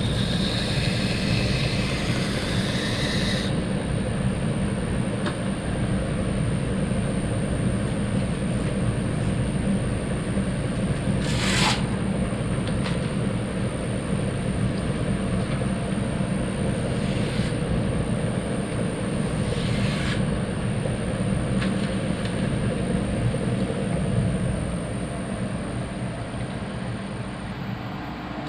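Bader 2x72 belt grinder running a leather stropping belt loaded with green rouge: a steady motor hum with a constant high whine, and a few brief swishes as the knife edge is stropped to take off the rolled burr. Near the end the sound eases and the whine cuts out as the grinder winds down.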